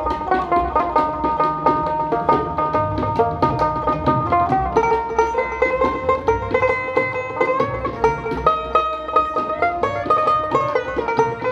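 Background music: fast plucked banjo-style string melody with a steady rhythm.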